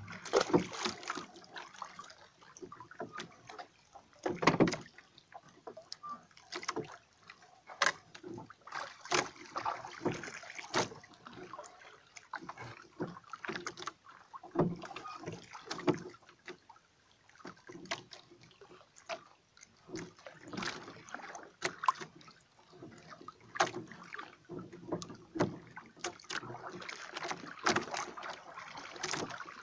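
Water lapping and slapping against the hull of a small outrigger fishing boat, with irregular knocks from the boat throughout and one louder thump about four and a half seconds in.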